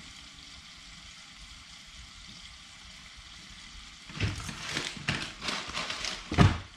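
Bluegill frying in oil in a small pot on a propane camp stove, a steady quiet sizzle. From about four seconds in, knocks and clatter of things handled on a table break in, with one loud thump near the end.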